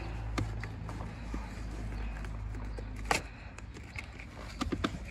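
Scattered clicks and knocks of plastic trim and wiring being handled behind a car's dash, with one sharper click about three seconds in, over a steady low hum that stops at about the same time.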